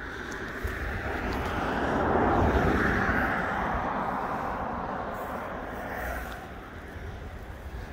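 A car passing on the road, its tyre and engine noise swelling to a peak about two and a half seconds in and then fading away.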